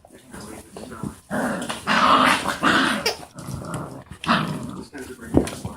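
Five-week-old Catahoula puppy growling in rough bouts, a long one starting after about a second and a shorter one near the end, with a sharp yelp-like burst just before the end.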